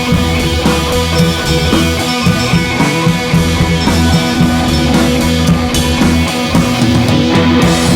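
Loud rock music with electric guitar and a drum kit, playing steadily.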